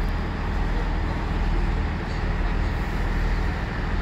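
Diesel train engine running steadily: a loud, even low rumble with a constant low hum.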